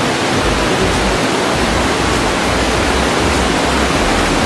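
Steady, loud rushing noise spread evenly across all pitches, with an unsteady low rumble underneath.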